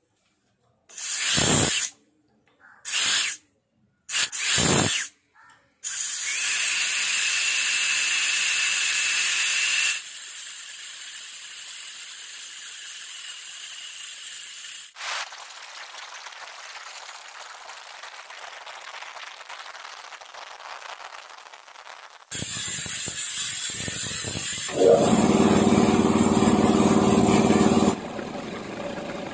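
Compressed air hissing out of the air compressor, first in a few short bursts, then as a steady stream that drops in level in steps as the tank pressure falls from its 100 psi cut-off. Near the end the compressor's motor and pump start up again on their own, the pressure switch cutting back in at about 60 psi.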